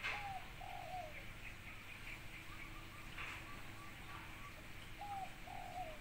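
Spotted dove (tekukur) cooing: two phrases about five seconds apart, each a short note followed by a longer note that falls away. Faint high chirps from smaller birds in between.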